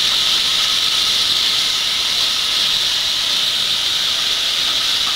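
Hot oil tempering of mustard seeds and curry leaves in an iron kadai sizzling with a steady, loud hiss as boiled drumstick pieces and shallots with their cooking water hit it, for drumstick sambar.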